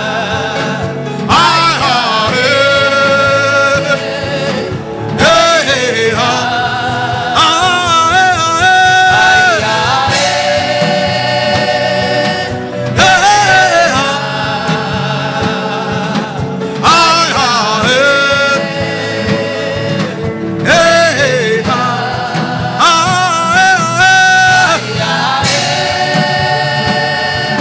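Gospel worship chant: sung phrases over a band accompaniment, a new phrase starting about every four seconds.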